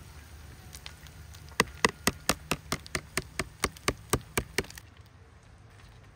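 A quick, even run of about a dozen sharp knocks, roughly four a second, lasting about three seconds.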